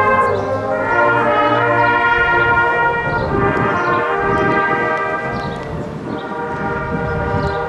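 Massed brass choir of trombones and trumpets playing held chords that change about once a second. A low rumble joins from about three seconds in.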